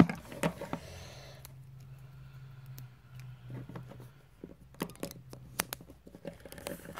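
Handling noise close to the microphone: one sharp knock at the start as the camera is covered or set down, then scattered small clicks and soft scrapes of a plastic Littlest Pet Shop figure being handled while a rubber band is fitted on it.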